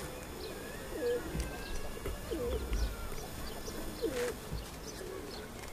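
A flock of white pigeons cooing: three short, low coos spaced a second or two apart.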